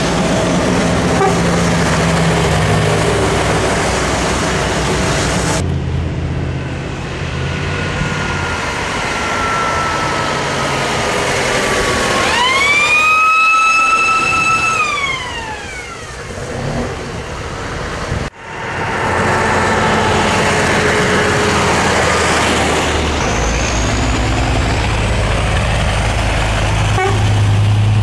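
Vintage Magirus-Deutz trucks' diesel engines running as the trucks drive past. A high whine slides slowly down, then a high whistling tone rises quickly, holds for about two seconds and falls away near the middle.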